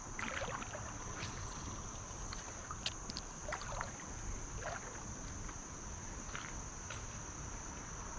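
Legs wading through shallow creek water, with irregular sloshing and splashing. Under it runs a steady high-pitched insect drone.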